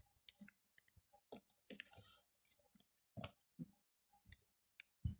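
Faint handling of a sheet of origami paper being folded and creased by hand: scattered soft crinkles and clicks, a brief rustle about two seconds in, and a dull thump near the end.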